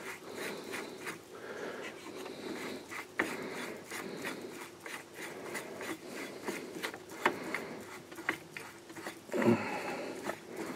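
Hands working a table-saw tenon jig, taking a part off it: rubbing and scraping with scattered small clicks and knocks, and a brief louder burst near the end.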